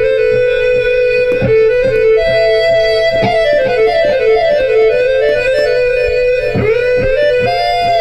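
Geo Synthesizer's 'JP Tone' guitar-like lead preset played on an iPad touchscreen: a fast run of melodic notes, joined smoothly when played legato, with a plucked pick attack on each freshly struck note. Near the end notes are slid into with pitch bends.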